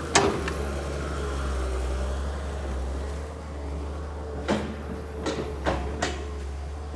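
Kobelco SK200 excavator's diesel engine running steadily, with a sharp knock just after the start and a few more knocks in quick succession over the last couple of seconds.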